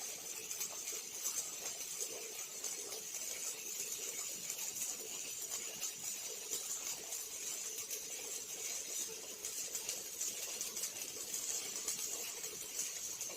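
Robotic arc welding: a steady crackling hiss from the welding arc, with many fine crackles and no pauses.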